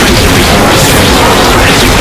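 Heavily distorted, blown-out music at near full volume: a dense, constant crackling noise with faint melody lines buried in it.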